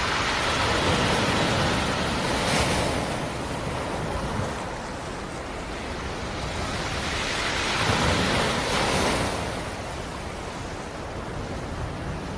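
Black Sea surf: waves rolling in and breaking on the shore, a rushing wash that swells twice, first near the start and again about eight seconds in.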